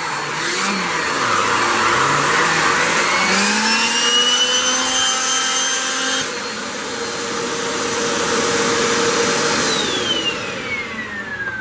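A Hoover WindTunnel 3 Pro Pet upright vacuum running. Its motor whine rises and falls as the airflow changes, with a blanket being sucked against the nozzle. The sound changes abruptly about halfway through, and near the end the whine falls steadily in pitch as the motor winds down.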